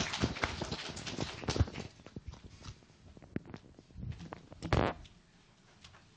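Handling noise at a lectern microphone: rustling with clicks and knocks, dense for the first two seconds, then scattered clicks and a short loud rustle near five seconds.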